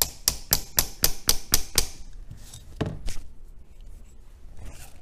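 Small ball-peen hammer tapping on the solid edge of a 1949 Emerson desk fan's motor stator, driving it out of the housing. It is a quick run of light strikes, about four a second, for the first two seconds, then a single knock about three seconds in.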